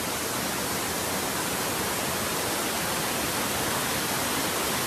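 The big falls at Wadsworth Falls: water pouring over the drop, a steady, even rushing noise.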